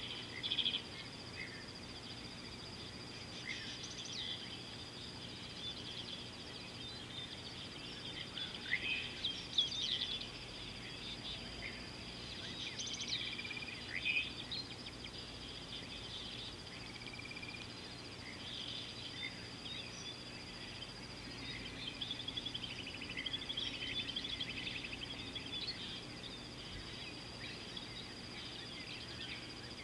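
Birds calling and chirping on and off over a steady high-pitched insect drone.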